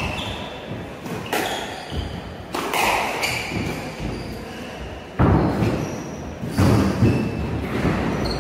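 Squash rally: about half a dozen sharp hits of the ball off rackets and the court walls at uneven spacing, the loudest about five and seven seconds in, ringing in the enclosed court. Short high squeaks of shoes on the wooden floor come between the hits.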